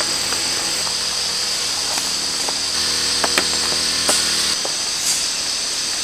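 Steady high-pitched insect chorus buzzing without a break, with a faint low hum under it that stops about four and a half seconds in, and a few faint clicks.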